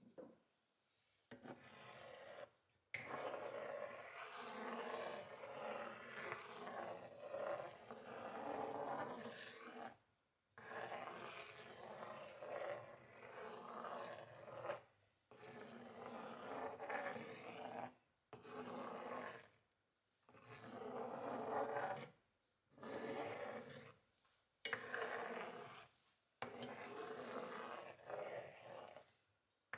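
Spatula scraping and pushing soft scrambled eggs across a nonstick frying pan as they cook and sizzle. The rasping comes in stretches of one to a few seconds, broken by short silences.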